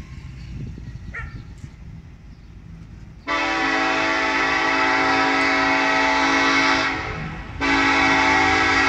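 Horn of an approaching EMD diesel freight locomotive, a loud multi-note chord: one long blast starting about three seconds in, a brief dip, then a second long blast starting after the short break.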